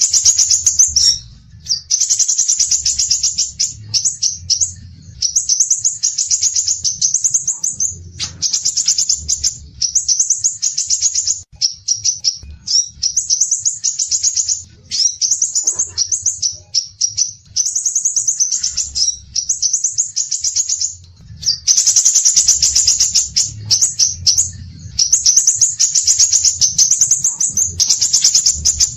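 Songbird singing a run of rapid, high-pitched twittering phrases, each a second or two long with short breaks between them, over a faint low hum.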